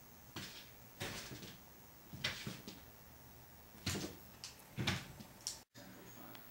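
A cat's paws thumping and scuffling on a hardwood floor as it pounces after a laser dot, about six short bursts over five seconds, the loudest two near the end.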